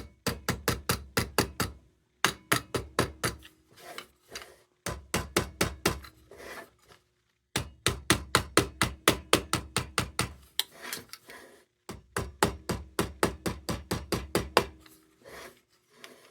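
A small hammer taps rapidly on the lantern's sheet metal in runs of quick, sharp strikes, about five a second, with short breaks between runs. The tapping is securing a part firmly in place.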